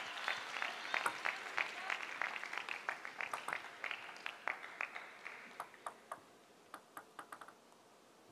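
Arena crowd clapping in a steady rhythm, about three claps a second, over a wash of crowd noise that dies away about six seconds in. A few scattered sharp clicks follow.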